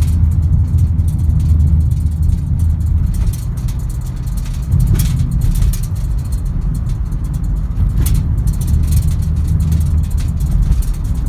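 Lada Largus Cross driving over a rough road: a steady low rumble of tyres and engine, with occasional sharp knocks from bumps.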